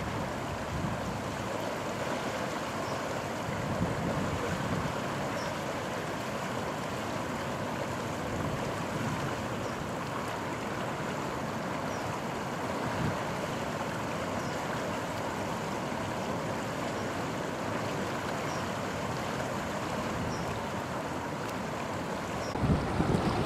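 Floodwater rushing steadily past the piers of a footbridge, a constant even rush of fast-flowing river water. Near the end, wind starts buffeting the microphone.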